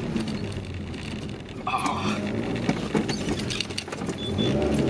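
A small car being driven hard on grass, heard from inside the cabin: the engine running under load, with bumps and knocks from the car jolting over the rough field.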